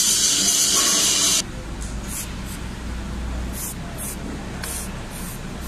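Aerosol can of weld-inspection spray hissing in a long spray that cuts off suddenly about a second and a half in, followed by a series of short puffs.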